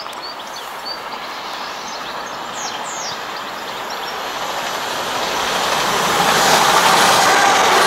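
Class 185 diesel multiple unit approaching at speed along the line, its running noise growing steadily louder, with a rising hum of steady tones coming in about six seconds in. A few bird chirps are heard in the first three seconds.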